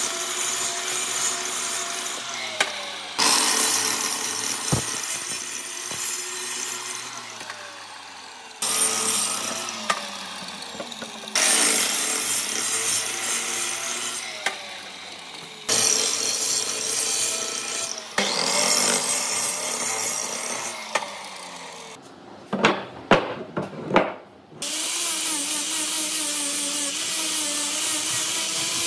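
A power saw cutting wood in about six separate passes, each starting suddenly and fading away with a falling pitch as the blade spins down. A few sharp knocks come about three quarters of the way through.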